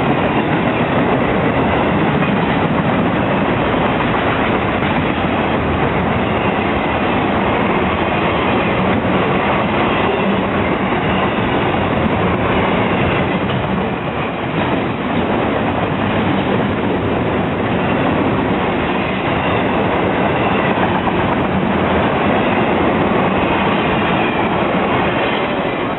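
A freight train's cars rolling past, their steel wheels running on the rails in a loud, steady din.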